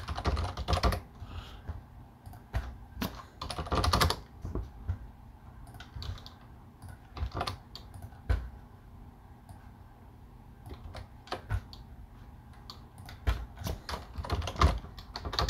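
Keystrokes on a computer keyboard: short bursts of typing and single key clicks separated by pauses.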